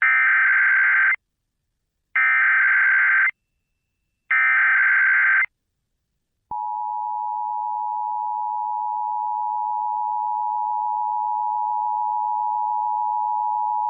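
Emergency Alert System SAME header: three identical bursts of warbling digital data tones, each about a second long with about a second between them, encoding a required monthly test. About six and a half seconds in, the steady two-tone EAS attention signal starts and holds.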